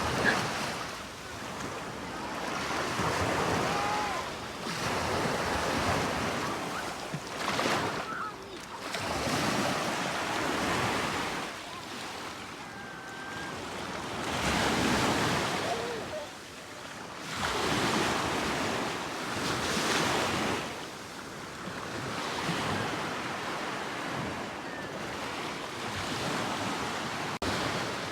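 Caspian Sea waves washing onto the shore, the surf noise swelling and fading every few seconds, with some wind on the microphone.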